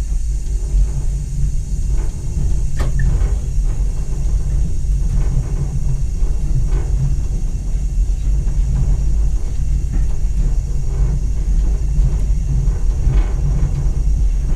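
Steady low rumble of a Class 205 'Thumper' diesel-electric multiple unit under way, heard from inside its cab: the English Electric diesel engine and running gear, with a few faint clicks now and then.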